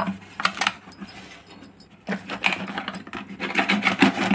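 Thin plastic bottle being cut around the neck with scissors, its plastic clicking and crinkling under the blades: a run of sharp clicks, thickest from about halfway through.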